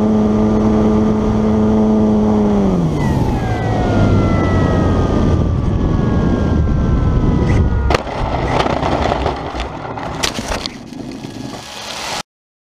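Powered paraglider trike's engine and propeller running at steady throttle, then throttled back about two and a half seconds in, the pitch sliding down over several seconds as it slows on the landing approach. A sharp knock about eight seconds in, then wind noise with scattered knocks and rattling before the sound cuts off suddenly near the end.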